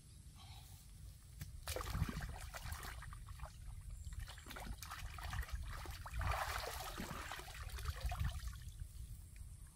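Water splashing and trickling as hands work in a shallow stream, in uneven bursts, loudest about two seconds in and again around six to seven seconds in.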